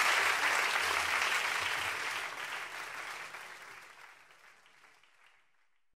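Audience applause, fading out steadily from about two seconds in until it is gone near the end.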